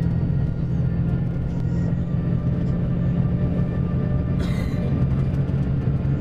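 Mercedes-Benz OM-457LA straight-six turbodiesel of a double-decker bus running steadily under way, with a short hiss about four and a half seconds in. The engine is worn after almost 7 years and over 2 million km, and the uploader says the wear can be heard.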